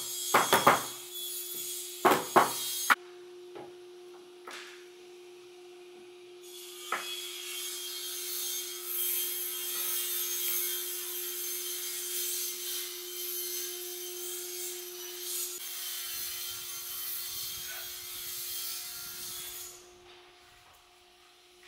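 Hand work on a glued wooden bookshelf carcass: a few sharp wooden knocks in the first three seconds, then a long steady hiss with faint clicks while pipe clamps are set and tightened across the case, over a low steady hum.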